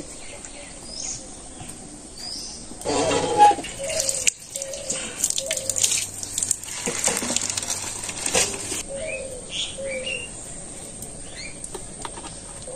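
Cooked dal being poured from a metal pot into a steel bowl, a pouring, splashing sound lasting a few seconds. It follows a brief ringing clatter of the metal pot about three seconds in. Small birds chirp throughout.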